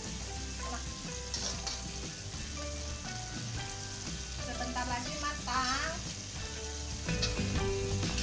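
Food sizzling as it fries in hot oil in a pan, a steady crackling hiss.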